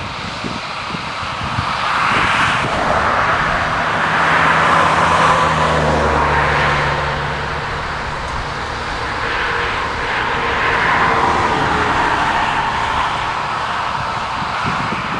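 Shuttlewagon SWX410 railcar mover working grain cars, its diesel engine running with a steady hum under a rushing noise that swells and fades several times.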